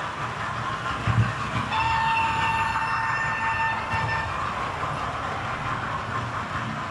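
Model train running past close by, its wheels rattling on the track, with a short low thump about a second in. A single steady horn tone sounds for nearly three seconds, starting about two seconds in.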